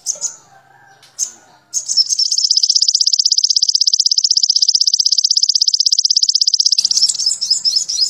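Olive-backed sunbird (sogon) singing: a few short high chirps, then a long, very fast, even trill lasting about five seconds, the 'trotol' rattle that songbird keepers train their birds on. The trill breaks back into quick chirps near the end.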